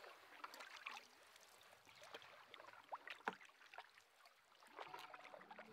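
Faint water sounds of a canoe being paddled: scattered small splashes, drips and gurgles as paddles dip and lift.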